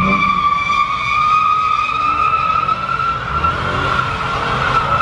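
Pickup truck's rear tyres screeching in one long, steady squeal as they spin on the asphalt, the pitch rising slightly.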